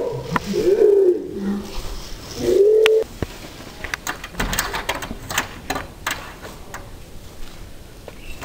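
A person's wordless, drawn-out vocal cries that bend up and down in pitch, cutting off about three seconds in. After that there is quieter rustling and crunching of footsteps and scuffling in dry leaves and grass.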